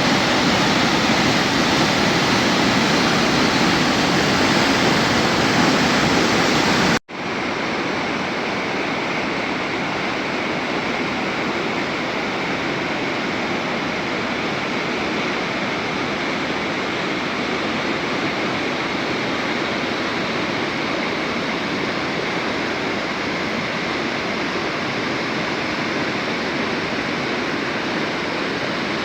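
Waterfall: water falling and splashing in a loud, steady rush. It breaks off for an instant about seven seconds in and comes back a little quieter.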